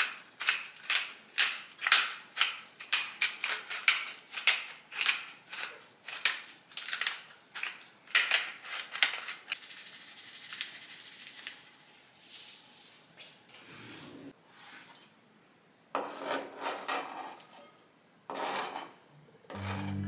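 Hand-twisted spice grinder grinding spice over a bowl: a run of gritty crunches about two a second, then a softer continuous grinding hiss about halfway through. A few short crunching bursts follow near the end.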